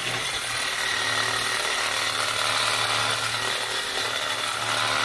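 Reciprocating saw running steadily, its long metal-cutting blade sawing through a steel weld on a truck's bumper cross member, a low hum under a steady rasp. The blade is old and worn.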